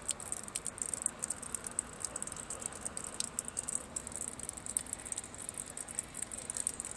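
Falling snow pattering on surfaces close to the microphone: a dense, irregular ticking over a steady hiss.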